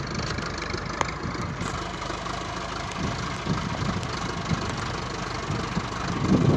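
Farm tractor's diesel engine running steadily close by while its front loader sets a stretch-wrapped bale onto a trailer, with a sharp click about a second in.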